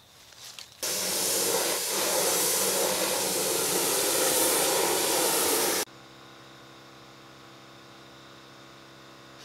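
Gravity-feed compressed-air paint spray gun spraying in a steady loud hiss, starting about a second in and cutting off abruptly about six seconds in. A much fainter steady hum follows.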